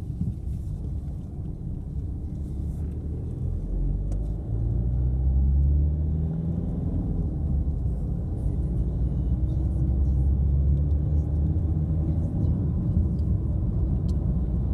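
Car engine and road rumble while driving, the engine note rising about four and a half seconds in as the car accelerates, then running steadily.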